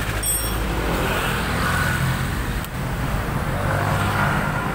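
Honda CBR150R's single-cylinder engine idling steadily through a full-carbon F2Racing aftermarket exhaust, with a deep bass note. A single short click sounds a little before three seconds in.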